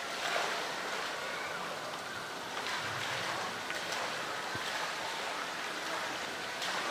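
Steady rushing background noise, with no clear animal call.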